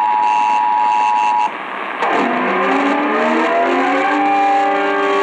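Emergency Alert System two-tone attention signal, heard over AM radio reception, which cuts off about a second and a half in. After a short gap a siren starts up, rising in pitch, and then holds a steady tone.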